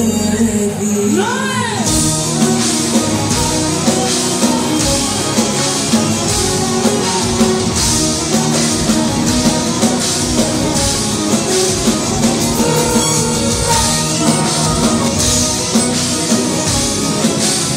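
Live band music played loud: bouzoukis over a drum kit, with a steady drum beat that comes in about two seconds in.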